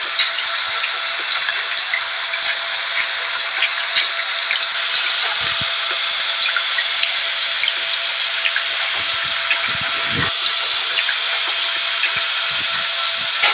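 Steady rain mixed with a vacuum cleaner running, its motor holding one steady whine under the hiss of the rain, with scattered small drop ticks.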